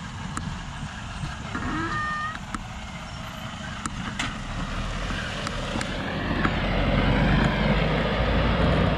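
Milk tanker truck and trailer driving past on a gravel road: engine rumble and tyre noise, growing louder over the last few seconds as it comes closest.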